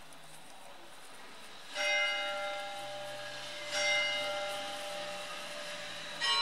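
Bells ringing with slow single strikes about two seconds apart, each note ringing on and slowly fading. Successive strikes are of different pitch.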